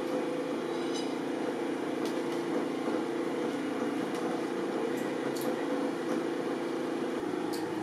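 Steady low machine hum with a few faint, sharp clicks scattered through it.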